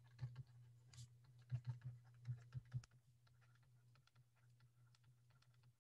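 Faint, irregular taps and clicks of a stylus writing on a tablet screen, stopping about three seconds in, over a faint low hum.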